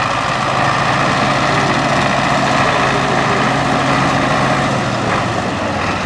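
Belarus MTZ tractor's diesel engine running steadily under load as it pulls a mounted reversible plough past close by, its low steady note fading about five seconds in as it moves away.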